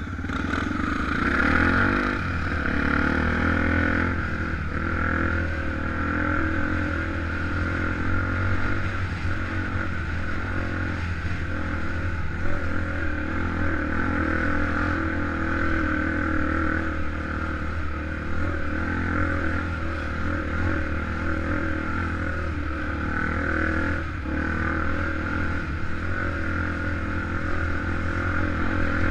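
Honda XR250 Tornado's single-cylinder four-stroke engine running under way. It picks up over the first two seconds, then holds fairly steady.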